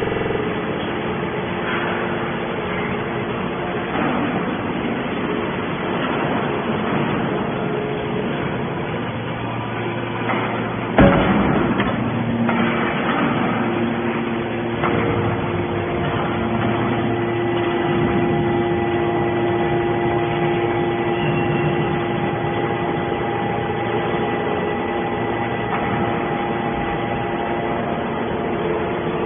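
Small hydraulic can baler running: a steady machine hum with several held tones, one sharp loud clank about eleven seconds in, and the hum changing pitch a few seconds later.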